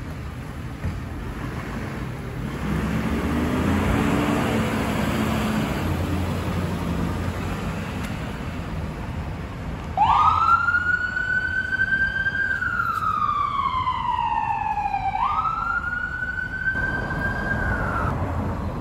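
Fire department aid unit's engine running as it pulls out. About ten seconds in, its siren starts a wail: a quick rise, a slow three-second fall, another quick rise and a hold, cut off suddenly near the end.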